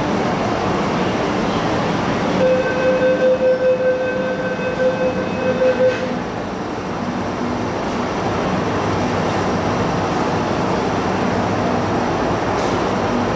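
MTR Kwun Tong Line M-Train standing at an underground platform, its running equipment giving a steady noise. From about two and a half seconds in, a pulsing electronic warning beep sounds for about three and a half seconds, then stops.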